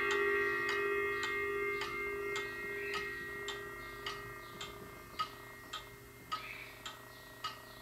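The ringing of a 1970s Silco wall chime clock's rods fades away, with no new strokes. The clock's movement ticks evenly, just under two ticks a second, and the ticks stand out plainly once the ringing has died.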